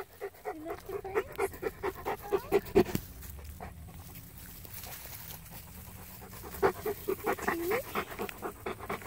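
Bernese mountain dog panting in quick rhythmic breaths. It pauses for a few seconds in the middle, then starts again close by near the end.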